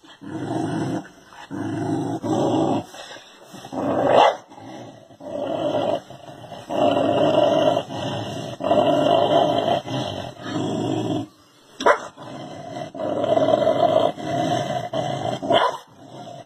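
A dog growling in long stretches of a second or two, broken by three short, sharp barks.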